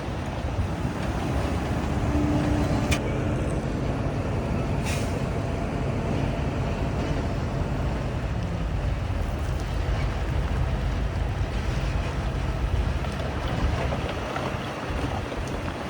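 Diesel engine of heavy earthmoving machinery running with a steady low rumble, with two short sharp clicks or hisses a few seconds in.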